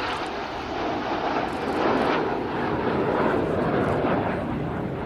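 Jet noise from a formation of BAE Hawk T1 jets flying past, swelling to its loudest mid-way and easing slightly near the end.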